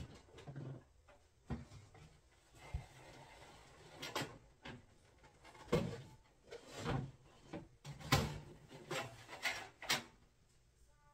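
Objects being moved about and set down on display shelves: a string of irregular knocks and clunks with rubbing and rustling between them.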